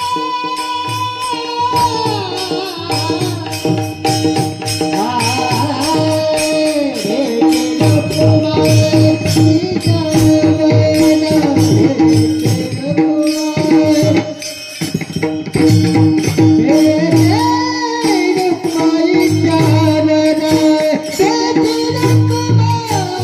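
Marathi devotional abhang music: a voice sings a gliding melody over a steady held drone, with percussion keeping an even beat.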